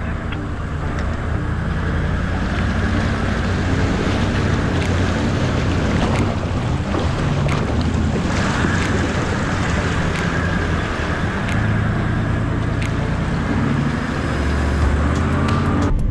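Toyota 79 Series LandCruiser fording a shallow creek: its engine running at low, steady revs under the rushing, splashing hiss of water pushed aside by the vehicle, which grows fuller about halfway through, with occasional sharp knocks.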